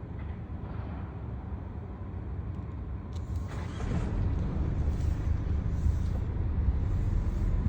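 A low rumbling noise of unknown origin, the one that is recurring in the early morning and that nobody can explain. It grows louder and fuller about three and a half seconds in.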